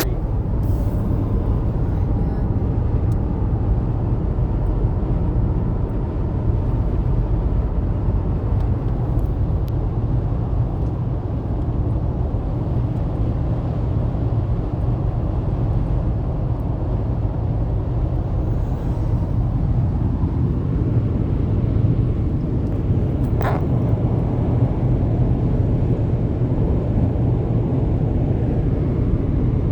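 Steady low rumble of a car driving along a road: road and engine noise. A brief higher sound about three quarters of the way through.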